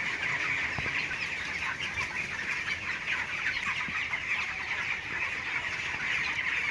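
A large flock of 18-day-old chickens calling together: many short, high chirps overlapping into a dense, steady chorus.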